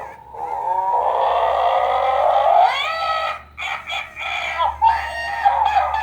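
Electronic toy's speaker playing a pitched, warbling animal-like sound effect: a long held tone, then a rising glide about three seconds in, then more choppy pitched sounds, over a low steady hum.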